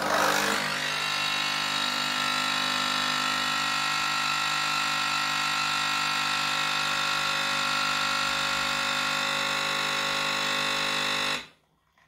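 Nespresso Magimix Inissia coffee machine's pump buzzing steadily as soon as the brew button is pressed, then cutting off suddenly after about eleven seconds. The pump is working normally again, pushing water through now that the air lock has been cleared.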